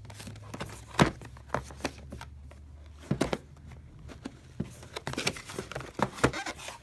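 Cardboard retail box being handled and opened: the sleeve is slid off and the inner box pulled out, giving scattered scrapes, taps and knocks of cardboard, the sharpest about a second in.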